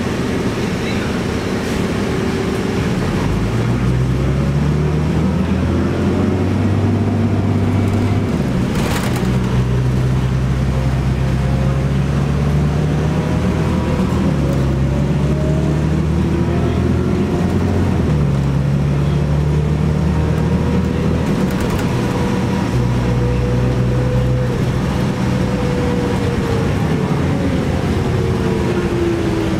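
Cummins ISC diesel and Allison automatic transmission of a 1998 New Flyer D40LF transit bus under way, heard from inside the bus. The engine note changes pitch in steps several times as the transmission shifts, with a higher whine rising and falling above it.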